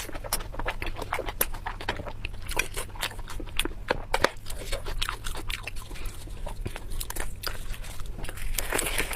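A person chewing and biting food, with many short mouth clicks in quick, uneven succession.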